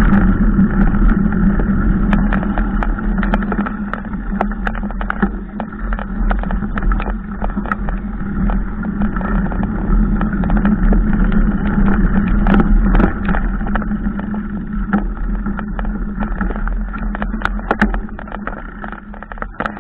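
Riding noise from a mounted camera travelling over a bumpy dirt track: a steady drone with many sharp knocks and rattles as it jolts over the ruts, fading near the end.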